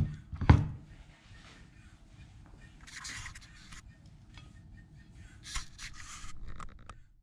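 A ceramic plate knocking once on the table about half a second in, followed by a few soft scraping and rustling sounds.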